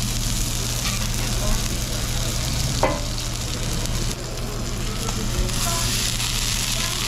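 Steady frying sizzle from a commercial flat-top griddle, where a chicken dürüm wrap is toasting, and the deep fryer of chips beside it, over a steady low hum. A single knock comes about three seconds in, and the sizzle dips briefly a little past four seconds.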